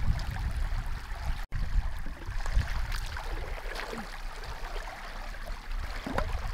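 Fast-flowing muddy floodwater rushing and rippling past in a shallow stream, a steady noisy wash with a low rumble underneath.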